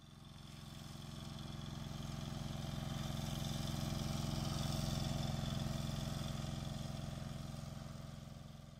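A steady, even-pitched engine hum that swells to a peak about halfway through and fades away near the end.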